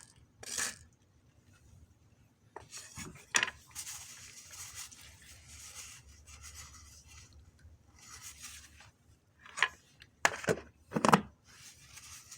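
Rubbing and rustling with a few sharp knocks, the loudest cluster near the end.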